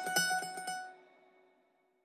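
Background music with quick repeated notes fading out and stopping about a second in, then silence.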